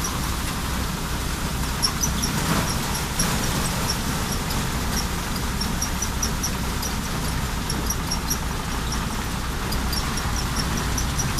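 Mechanical rice thresher running steadily: a low machine drone with the rustle of straw and grain going through it. Short high squeaks recur irregularly throughout.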